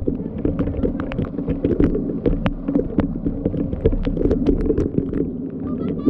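Small engine of a portable water pump running steadily, with frequent sharp splashes and slaps of hands in water and mud.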